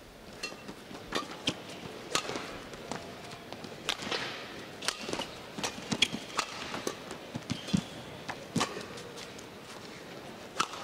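Badminton rally: rackets striking the shuttlecock in a quick exchange of sharp cracks, with players' footwork on the court in between.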